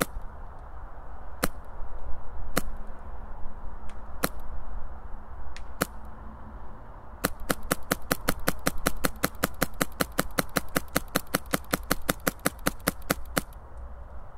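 Wolverine MTW HPA airsoft rifle with an Inferno Gen 2 engine, run at 100 PSI, firing: five sharp single shots one to two seconds apart, then, about seven seconds in, a steady burst at about five shots a second for roughly six seconds.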